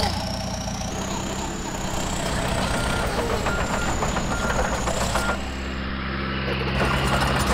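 Truck engine running steadily, with a short high beep repeating a little under once a second for a few seconds, like a reversing alarm.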